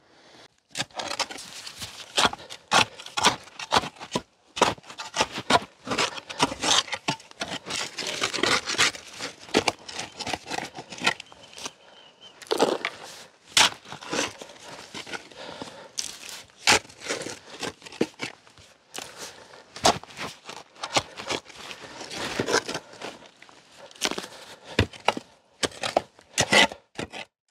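Shovel digging in stony soil: irregular scrapes and knocks of the blade against earth and stones, with clods and stones being thrown.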